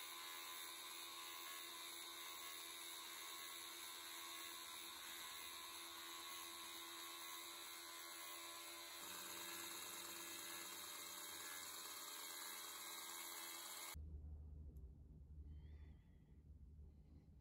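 Belt grinder running, its sanding belt making a faint, steady hiss. About fourteen seconds in the sound cuts off abruptly to a faint low hum.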